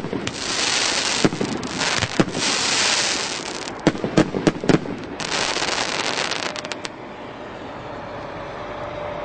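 Multi-shot firework cake (CGF-794 battery) firing its last shots: sharp launch and burst bangs, several in quick succession a little before halfway, each followed by a spell of hissing, crackling stars. It stops about seven seconds in, leaving a faint steady hum.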